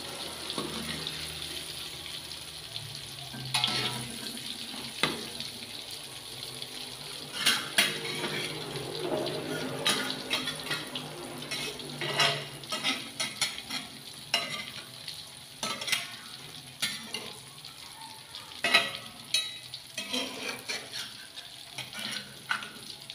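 Sliced galangal and ginger frying in oil in a wok: a steady sizzle broken by frequent sharp crackles and pops.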